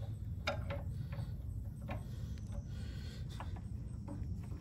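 A few scattered light clicks and taps of an adjustable wrench being handled against the pump and frame, over a steady low hum.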